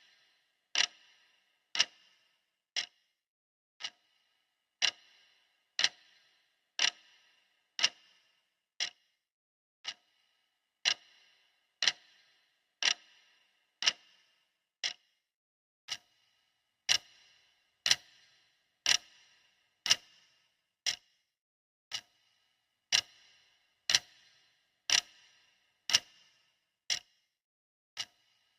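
Clock ticking steadily, one sharp tick every second, each with a brief ringing tail.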